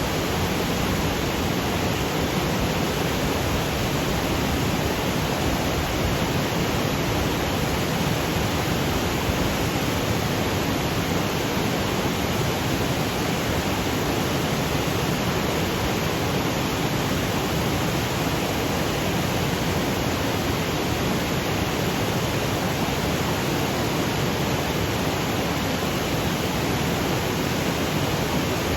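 Waterfall cascading over granite boulders: a steady, unbroken rush of falling water.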